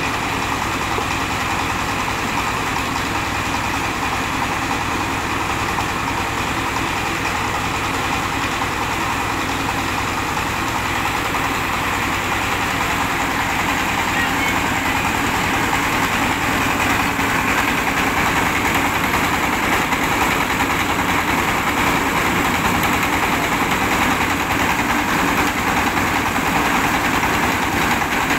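Diesel engine running steadily, driving a rice milling machine as grain from a sack is poured into its hopper; engine and mill blend into one continuous machine noise that grows a little louder about halfway through.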